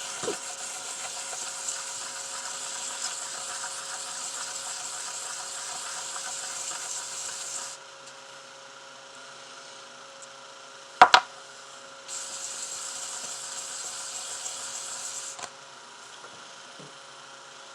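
Wet sandpaper rubbed by hand over a silver pendant, a steady hiss. It stops for a few seconds about halfway, with one sharp knock, then resumes for about three seconds.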